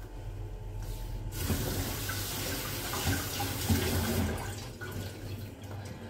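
Kitchen tap running into a sink as fruit is rinsed, coming on about a second in and tailing off after about three seconds.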